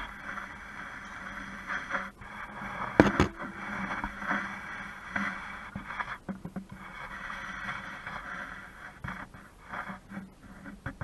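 BMW E83 X3 engine idling roughly, its level surging and dipping unevenly with a few sharp clicks, the loudest about three seconds in: an unstable idle after the drive belt shredded and damaged the crankshaft seal.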